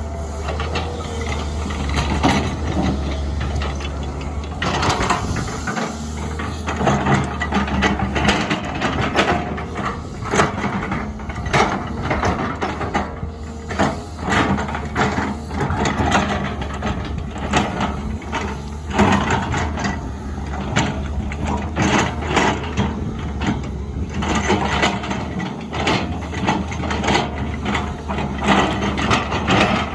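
SANY SY205C hydraulic excavator at work: the diesel engine runs steadily under frequent, irregular knocks and scrapes of the bucket against the ground.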